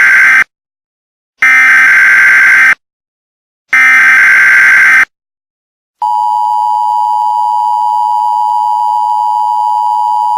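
Emergency Alert System SAME header: three bursts of warbling data tones, about a second each with short silences between (the first already under way), then about six seconds in the steady two-tone EAS attention signal begins and holds.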